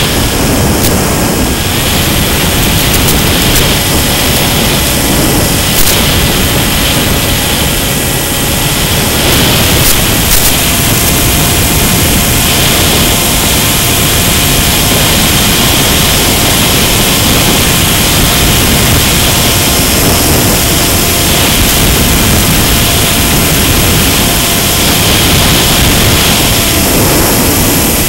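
Loud, steady rush of air over a Mini Skywalker FPV plane in flight, with a faint steady whine from its electric motor and propeller that changes pitch about ten seconds in, and a few brief clicks.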